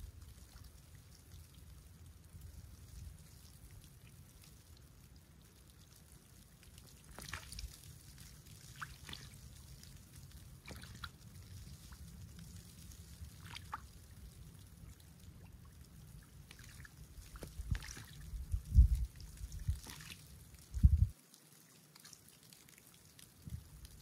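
Calm seawater lapping at a snow-covered shore among drifting clumps of snow slush: soft trickles and drips over a low steady wash. A few dull low thumps come in the last third.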